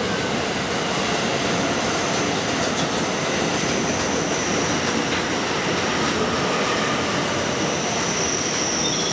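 A train passing through the station at speed without stopping: a loud steady run of wheels on rail, with a high thin whine running through it.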